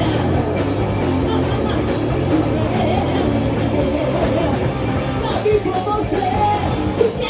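Rock music with a voice singing over guitar and drums.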